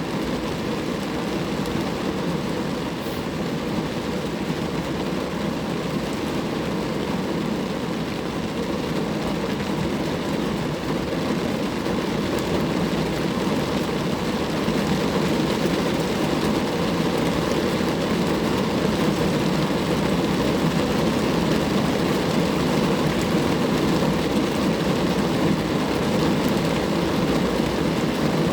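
Rain falling on a car, a steady dense noise that gets slightly louder about halfway through.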